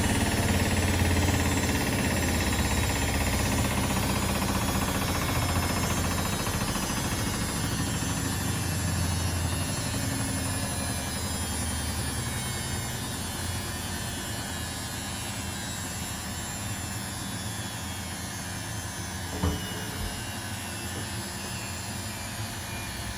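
Washing machine spin running down: a loud, vibrating drum hum that gradually fades as the drum slows, with a short knock near the end.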